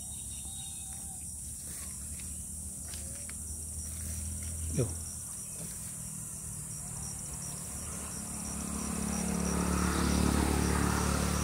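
Steady high-pitched buzzing of insects, with a short rising squeak near the middle. Over the last few seconds a motor vehicle's engine grows louder and becomes the loudest sound.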